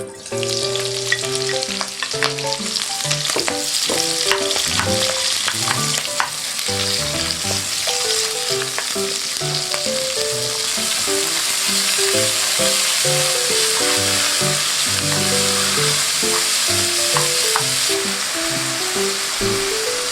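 Battered pollock pieces frying in hot oil: a steady sizzle that grows fuller about eight seconds in, with a few light clicks.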